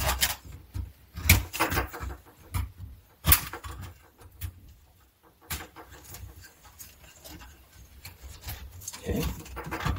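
Hands handling plastic push-in tube fittings on an inline water filter: scattered sharp clicks and light knocks, with a quieter stretch near the middle, as a plastic locking clip is worked onto the fitting.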